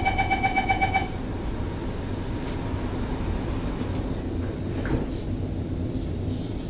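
Door-closing warning chime of an Alstom R151 metro train, rapid two-pitched beeping that stops about a second in as the doors slide shut. A steady low rumble and hum of the train car follows.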